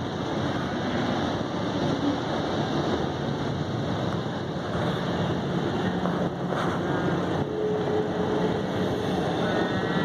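Steady rumbling road noise of a car driving slowly along a country road.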